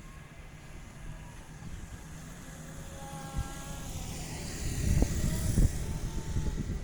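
Railway train approaching: a low rumble and hiss growing louder over the second half, with a couple of sharp knocks near the end.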